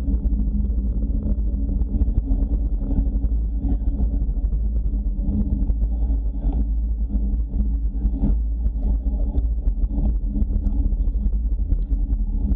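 Wind buffeting the microphone of a bike-mounted action camera while cycling at speed, a steady low rumble, with short rattles and clicks from the bike and road.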